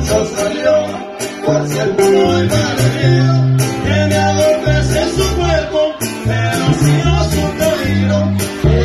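Live band playing a corrido: strummed guitars over a deep bass line that steps between notes in a steady rhythm.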